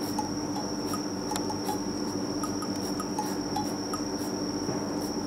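A cat licking a tatami mat: short, faint, scratchy licks of its rough tongue on the woven straw, about two a second, over a steady high-pitched whine and a low hum.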